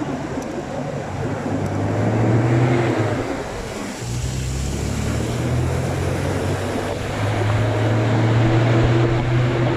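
A motor vehicle's engine running with a steady low hum under an even rushing wash of noise. The hum dips briefly about four seconds in, then picks up again.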